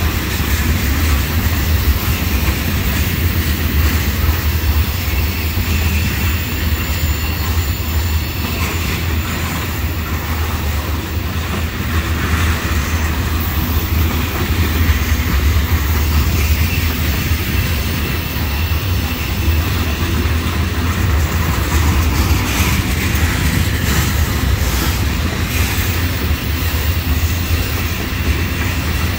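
Loaded tank cars of a freight oil train rolling past: a steady rumble of steel wheels on rail, with a few sharper clicks about three-quarters of the way through.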